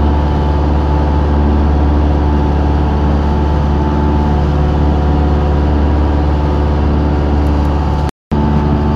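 Single-engine light aircraft's engine and propeller droning steadily in flight, heard from inside the cockpit. The sound cuts out for a split second near the end.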